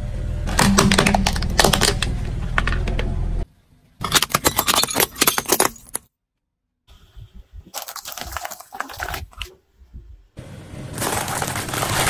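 A car tyre rolling over and crushing objects in a string of short cuts separated by brief silences. There is cracking and crunching plastic with a low rumble under it, brittle cracks and clinks of a ceramic plate breaking into shards, and dense crunching of wrapped wafer snacks near the end.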